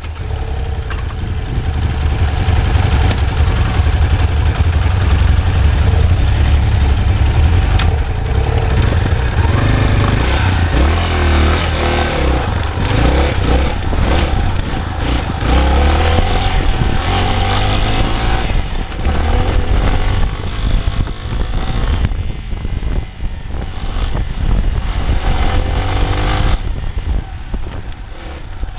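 Dirt bike engine running and revving up and down as the bike is ridden, heard from a camera mounted low on the bike itself, with heavy wind rumble on the microphone. The engine pitch rises and falls most markedly in the middle stretch.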